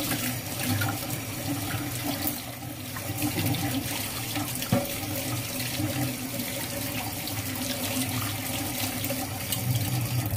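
White rice boiling in a wide open pan, a steady bubbling hiss with fine crackles, over a steady low hum.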